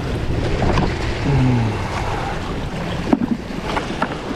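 Wind buffeting the microphone over the wash of sea waves on the shore, a steady noisy rush. A brief low vocal sound comes about a second in, and a couple of sharp clicks a little after three seconds in.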